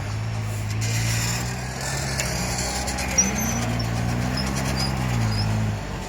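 Vehicle engine running, its note rising somewhat midway and then dropping away shortly before the end.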